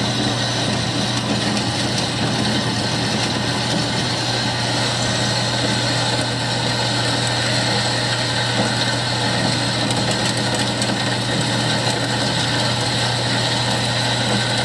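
JET HBS-10HD 10-inch horizontal metal-cutting bandsaw running and cutting through a clamped piece of stock as the arm feeds down, a steady low motor hum under an even hiss from the blade. It is cutting with no issues, even under a fairly heavy feed.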